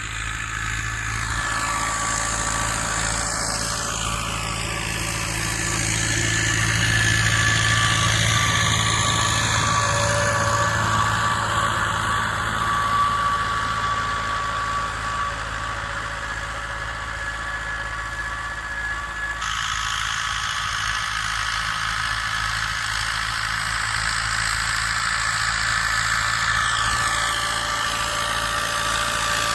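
YuMZ-8040 tractor's diesel engine running steadily under load while pulling a plough at speed, with a steady high whine over the engine drone.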